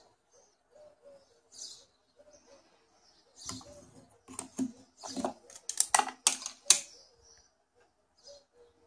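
Hands handling a camera lens and a slim polarizing filter: a cluster of sharp clicks and knocks from about three and a half to seven seconds in, as the plastic lens cap is pulled off and set down. Pigeons cooing and small birds chirping faintly in the background.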